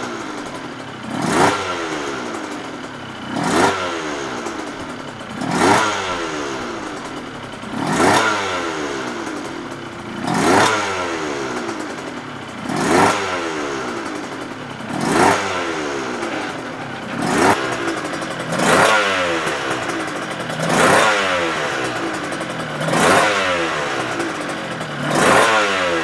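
Suzuki RGV two-stroke race bike, stationary on a paddock stand, revved in about a dozen sharp throttle blips roughly every two seconds; each one jumps up quickly and then falls back toward idle.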